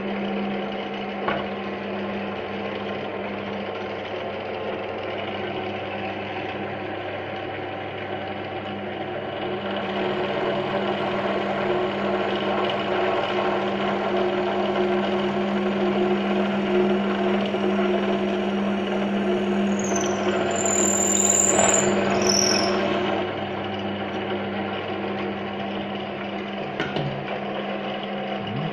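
Euro Craft DP 201 bench drill press motor starting and running with a steady electric hum, then drilling into a block of wood. The hum grows louder under load for about ten seconds midway, with a brief high squeal near the end of the cut.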